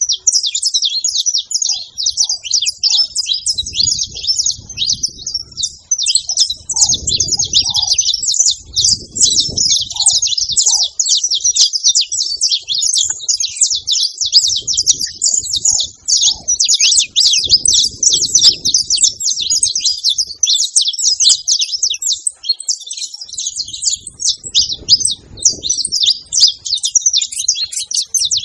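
Several saffron finches chirping and singing together in a dense, unbroken stream of quick high chirps.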